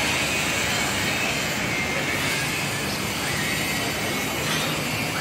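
Steady outdoor city noise: an even wash of traffic with no single event standing out.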